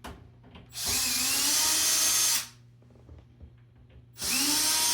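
Cordless power drill run twice in short bursts, set to drill mode in low gear. Each time the motor whirs up to speed and holds a steady whine, the second run starting near the end, most likely working screws on an AV receiver's case.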